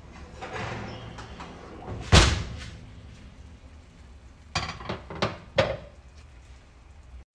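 Kitchen knocks and bangs: one loud bang about two seconds in, then a quick run of four or five sharper knocks near the middle.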